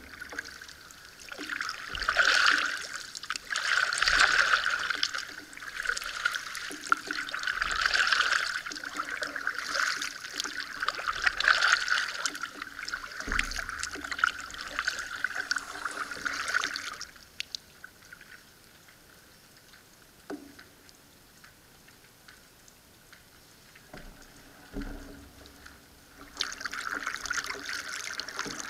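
Canoe paddle strokes: water splashing and dripping off the paddle blade about once every two seconds, with a few low knocks of the paddle against the hull. The strokes stop for several seconds past the middle, leaving only faint water sounds, then start again near the end.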